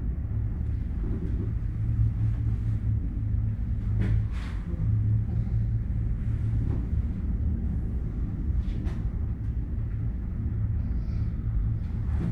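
Steady low rumble and hum of a moving gondola cabin, heard from inside, with a few faint ticks now and then.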